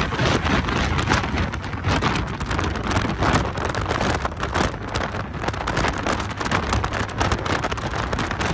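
Wind rushing and buffeting over the microphone of a moving Honda Gold Wing motorcycle, over a steady low hum from its flat-six engine.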